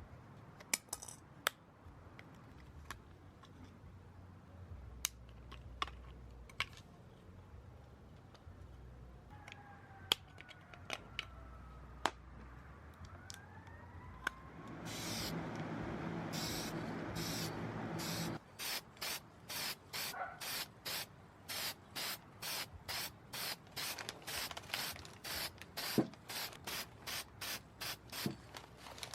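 Hand work on a diecast model car: scattered small clicks and taps, then a steady hiss for about four seconds, then fast, even hissing strokes about two a second.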